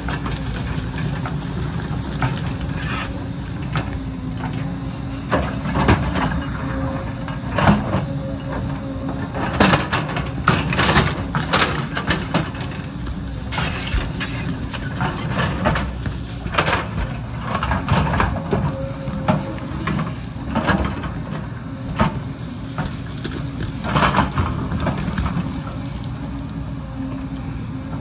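A JCB crawler excavator's diesel engine running steadily under load, with a held hydraulic whine. Its bucket scrapes and knocks against rock and soil in irregular clanks and rattles, busiest about a third of the way in.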